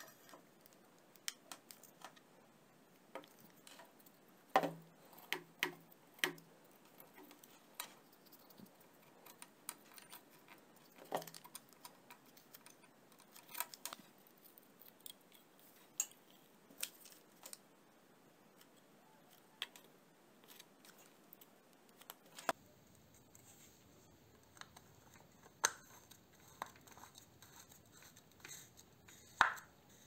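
Small hand-handling noises: scattered clicks, taps and light knocks of plastic and metal shower-head parts being handled and fitted together, with the loudest clacks around a sixth of the way in and again near the end.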